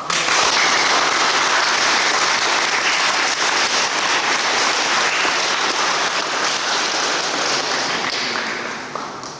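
An audience applauding. The clapping starts abruptly and fades out near the end.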